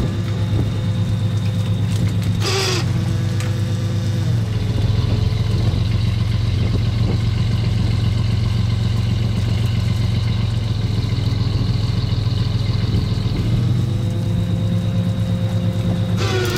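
Fishing boat's engine running steadily, with a higher whine from the net hauler that comes in briefly near the start and again near the end as the net is hauled aboard. A short clatter about two and a half seconds in.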